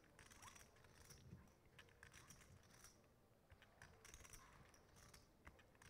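Near silence: quiet room tone with faint, scattered light clicks.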